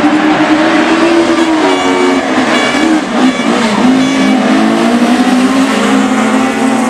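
A pack of rallycross cars racing together at high revs, several engines running hard at once with their pitch rising and falling, and a brief dip about three seconds in.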